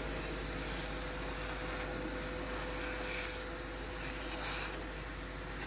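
Steady rushing noise of a large oil-field fire being fought with a fire hose spraying water, with a faint steady hum underneath and brief louder hissing a few seconds in.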